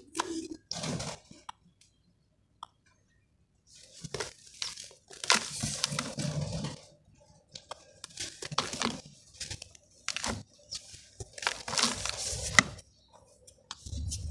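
Hands squeezing and crumbling wet charcoal-and-sand chunks in a plastic tub: irregular gritty crunching in short bursts, with a pause of about two seconds near the start.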